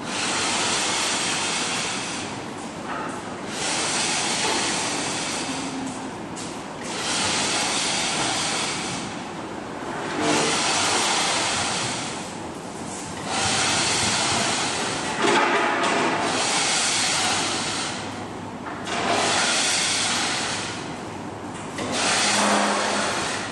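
Hand scraper scraping paint off a painted surface in long strokes, about eight of them, each two to three seconds long with short pauses between.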